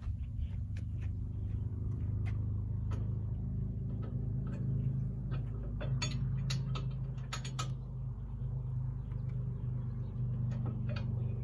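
Yanmar SA324 compact tractor's three-cylinder diesel engine idling steadily. A few sharp clicks come in the middle as the steel loader stand is handled and folded up.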